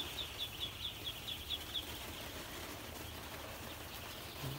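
Muscovy ducklings peeping in a brooder: a quick run of high peeps, about five a second, that stops about two seconds in, then only faint background.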